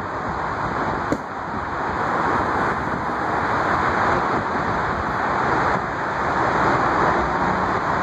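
Steady rushing city street noise, with a single sharp click about a second in.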